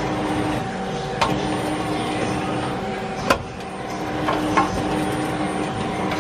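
Nomura NN32YB2 CNC Swiss-type lathe running with a steady mechanical hum made of several held tones. Four sharp clicks sound over it, the loudest about halfway through.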